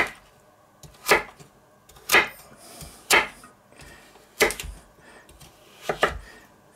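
Chef's knife chopping Hokkaido pumpkin into cubes on a thick wooden cutting board: sharp knocks about once a second, the last two doubled.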